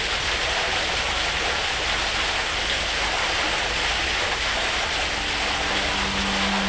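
Waterfall and cascading stream water rushing steadily over rock. About five seconds in, a sustained musical note comes in beneath it.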